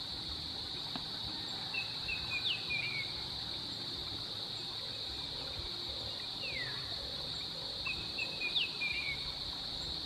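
Steady high-pitched drone of insects, with a small bird's quick twittering chirps twice, about two seconds in and again near the end, and a single falling whistle between them.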